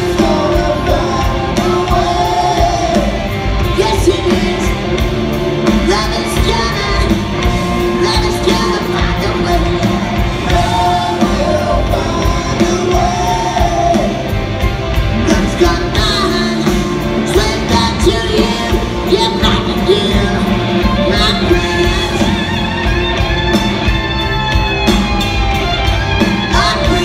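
Live rock band playing a power ballad: lead vocals over guitars, bass and drums, heard from the crowd in a large hall.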